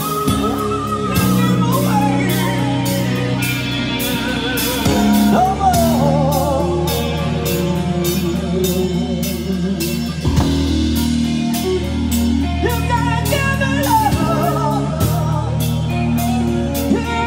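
Rock band playing live: a man singing over electric guitar and a steady drum beat.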